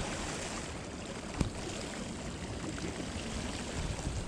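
Steady rushing noise of lake water washing against the shore, with one sharp click about a second and a half in.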